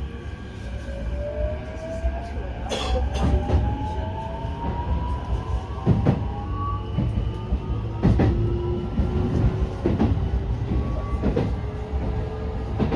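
Keikyu New 1000 series electric train heard from inside a car as it accelerates. The traction inverter and motors whine in several tones that rise steadily in pitch over a steady running rumble, with irregular knocks of the wheels over rail joints.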